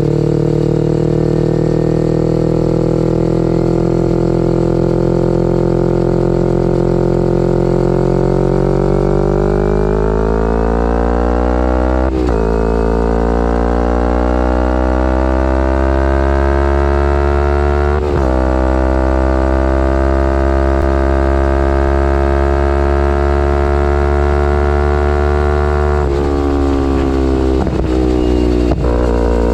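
2011 Kawasaki Ninja 250R SE parallel-twin engine through a full Graves race exhaust, running under way. The note holds steady, then rises in pitch under acceleration. It breaks off sharply twice, about twelve and eighteen seconds in, at gear changes. Near the end there are a few more quick breaks in the note.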